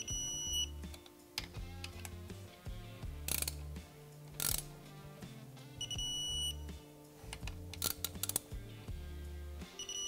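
Digital torque wrench beeping three times, short high beeps of about half a second each: at the start, about six seconds in, and again at the very end, each time a cam retainer plate bolt reaches its set torque of 12.5 ft-lb. A few sharp clicks and knocks from the wrench come between the beeps.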